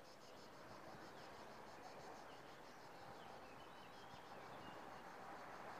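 Faint outdoor ambience: a soft steady hiss with a fast, high insect pulsing, and a few short bird chirps about halfway through.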